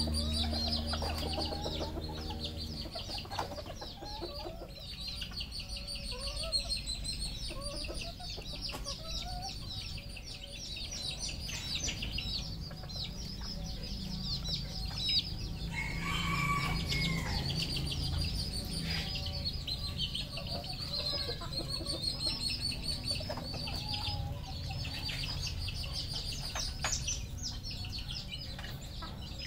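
Red junglefowl clucking and calling, with one longer crow-like call about halfway through, over a steady high-pitched chirping. A low hum stops about three seconds in.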